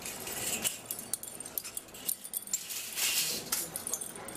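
Automatic packing-clip machine running, with rapid, irregular metallic clicking and clinking and a denser clatter about three seconds in.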